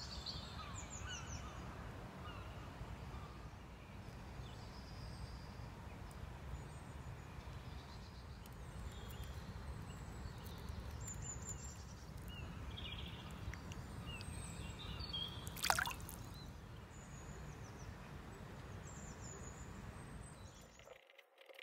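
Quiet outdoor ambience: small birds chirping here and there over a low steady rumble, with one louder falling call about sixteen seconds in. It cuts off suddenly near the end.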